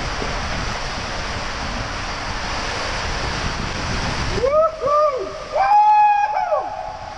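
Steady rushing of water and air through an enclosed tube waterslide during a ride. About four and a half seconds in the rushing drops away, and a few short high-pitched sounds rise and fall: two quick ones, then a longer one.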